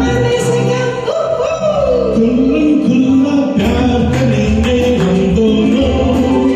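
A singer performing a Hindi film song over backing music with a steady beat.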